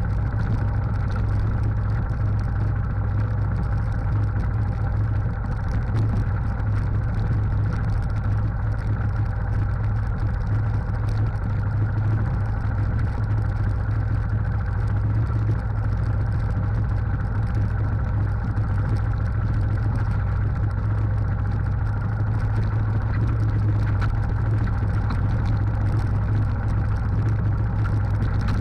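Trail motorcycle engine running steadily, its pitch holding nearly constant.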